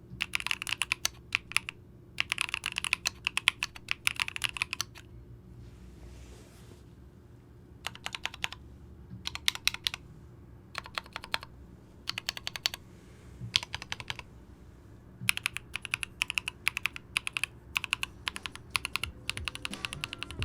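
Typing on a gasket-mount Alice-layout mechanical keyboard, as a typing-sound demonstration. The keystrokes come in fast runs of clicks broken by short pauses.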